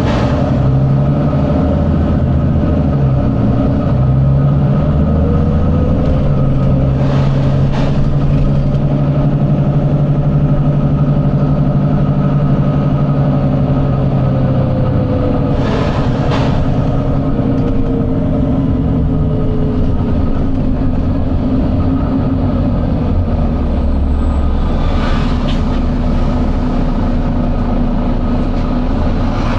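Volvo B9TL double-decker bus's six-cylinder diesel engine running under way, its note rising and falling as it changes gear. Short bursts of air hissing about three times.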